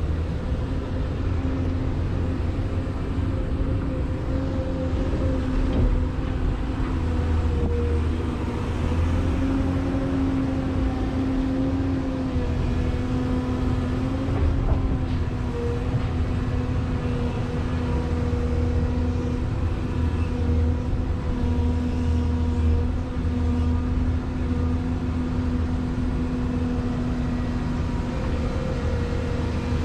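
Komatsu excavator's diesel engine running steadily under hydraulic load: a low drone with a humming tone whose pitch shifts slightly now and then.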